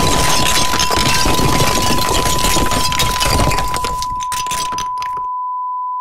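A steady, high, single-pitch test-tone beep of the kind played with TV colour bars, at first under a loud crackling noise that fades and stops about five seconds in, leaving the beep on its own.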